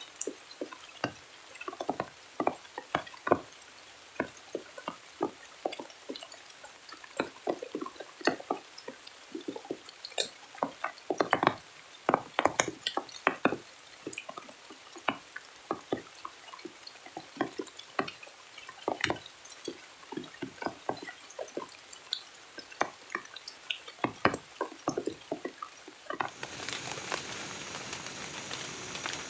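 Water drips tapping at irregular intervals, several a second, some louder than others. About 26 seconds in, a steady hiss of heavy rain suddenly takes over.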